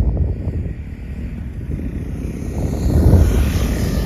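Husqvarna Svartpilen 401 single-cylinder motorcycle with a LeoVince LV10 titanium slip-on exhaust riding past; its exhaust note swells to its loudest about three seconds in as it goes by. Wind buffets the microphone throughout.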